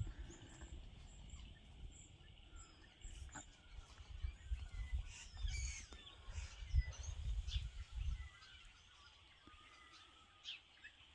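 A flock of small birds chirping with short, scattered calls as they settle into trees to roost for the night. A low rumble runs under them for several seconds through the middle.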